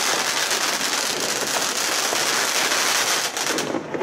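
Fireworks and firecrackers going off: a dense, continuous crackle of many small bangs, easing off a little near the end.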